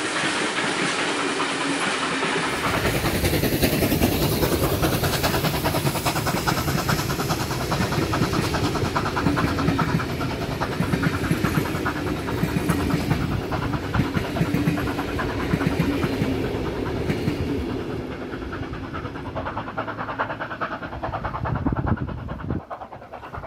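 Heritage train passenger carriages rolling past close by, their wheels clattering steadily on the rails. The sound eases and drops away near the end as the last carriage passes.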